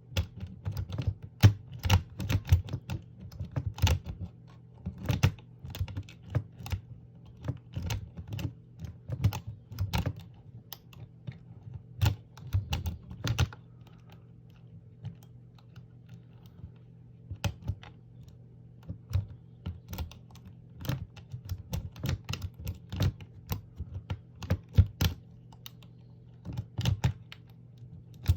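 Rake pick being scrubbed back and forth across the pins of a small pin-tumbler lock, held under a tension wrench. It makes a quick, irregular run of light metallic clicks and scrapes, thinning out for a few seconds about halfway through.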